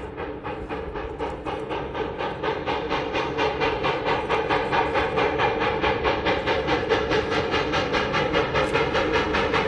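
Narrow-gauge steam locomotive working hard up a grade: a fast, even beat of exhaust chuffs that grows louder as the train comes closer.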